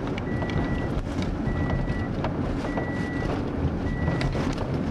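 Low, steady engine and road rumble inside a car's cabin, with an electronic warning beep repeating evenly about once every second and a bit, each beep about half a second long.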